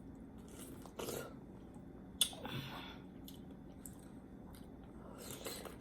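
Someone chewing pineapple close to the microphone: soft wet chewing with a few short mouth clicks and smacks, about a second in, around two seconds in, and again near the end.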